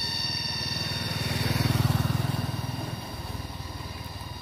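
A motor vehicle engine passing, running with an even low pulse that grows louder to a peak about two seconds in and then fades away.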